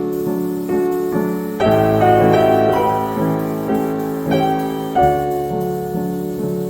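Background music: gentle piano playing sustained chords and melody notes.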